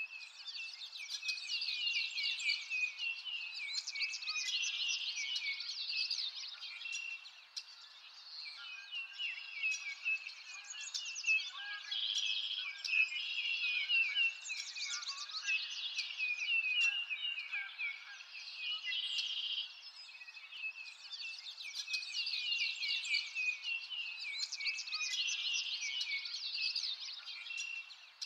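Several songbirds chirping continuously, with many quick, overlapping calls and trills.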